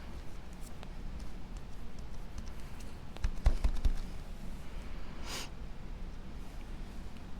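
Handling of cut card-stock pieces during gluing: faint scattered clicks, a cluster of soft knocks about halfway, and a short hiss a little later.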